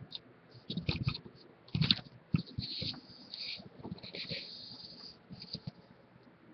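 Handling noise from a recording device being picked up and carried: a few knocks and bumps around one and two seconds in, then rustling and a stretch of scraping hiss.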